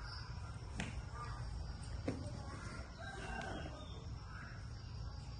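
Faint animal calls over a steady low hum, with two sharp clicks about one and two seconds in.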